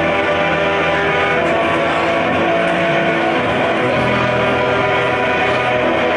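Live band playing amplified music on electric guitars, bass and drums, holding sustained chords at a steady, loud level.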